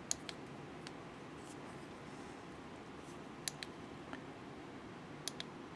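A few faint clicks, some in quick pairs, of the push-button switches on a Hazet rechargeable LED pen light being pressed to switch its lights on and off, over quiet room tone.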